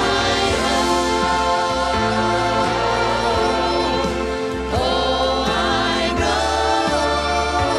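Gospel vocal trio, two women and a man, singing in harmony through handheld microphones over an instrumental accompaniment with a sustained bass line. A new, louder phrase comes in about five seconds in.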